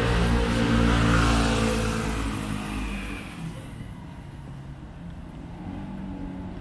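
A motor vehicle's engine passing close by, loudest about a second in and fading away over the next two seconds.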